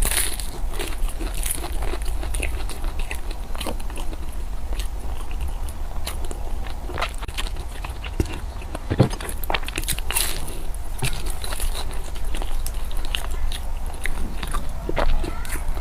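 A person eating close to the microphone: irregular biting and chewing with crackly, crunchy clicks, over a steady low hum.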